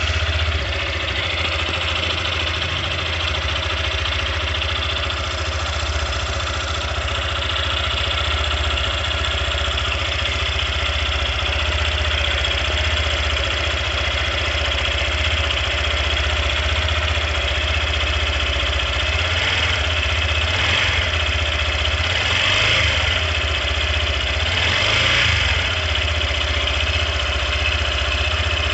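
Yamaha Factor 150 motorcycle's single-cylinder engine idling steadily right after starting, with a strong high clatter over the low exhaust beat: the engine noise the owner is showing as a problem.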